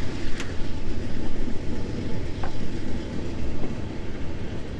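Wind buffeting the camera microphone: a dense, loud low rumble that rises and falls, with a couple of faint ticks.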